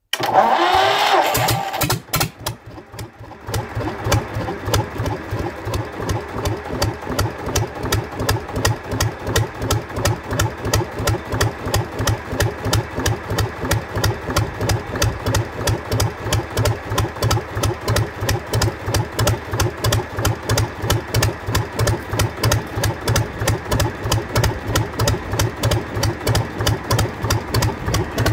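1952 Gardner 2LW two-cylinder diesel engine, its cold-start device open, cranked by the starter for about two seconds on its first start after overhaul. It catches about three seconds in and settles into a steady idle with an even beat of firing pulses.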